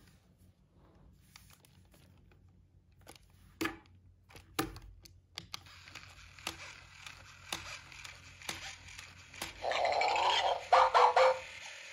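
Hasbro I-Dog Amp'd robot toy dog playing electronic dog sounds through its speaker, loudest near the end, after a few sharp clicks and knocks as its plastic body is handled and set down.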